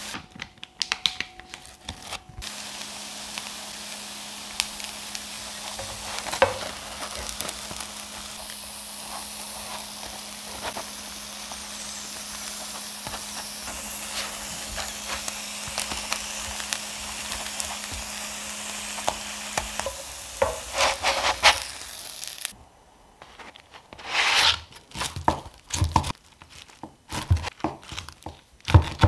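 Egg pancake sizzling in oil in a non-stick frying pan, with a few clicks from tongs as it is folded over. About two-thirds of the way through this gives way to a knife cutting the rolled pancake into pieces on a bamboo board, several separate cuts.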